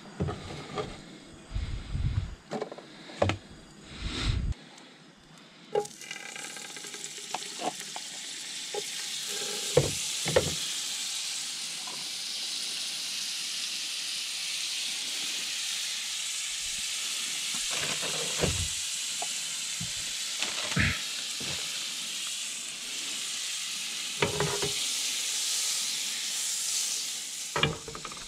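A knife chopping potatoes on a wooden cutting board for the first few seconds. Then butter sizzling in a frying pan on a camp stove: a steady hiss that starts about six seconds in and keeps going, with a few knocks from the pan and utensils.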